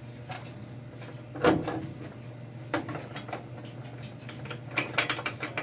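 Metal clicks and clunks of pry bars levering a VW Type 3 Squareback's torsion-barred hatch hinge against its spring tension. One sharp knock comes about a second and a half in, and a quick run of clicks near the end.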